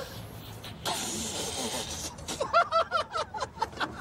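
A man sniffing hard through his fist: a long hissing inhale about a second in. He then breaks into loud, rapid, high laughter about two seconds in.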